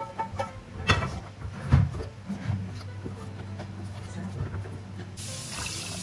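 A wooden spatula stirs thick dal in an aluminium pressure cooker, knocking against the pot twice in the first two seconds. Near the end, water is poured in from a cup with a short hissing splash.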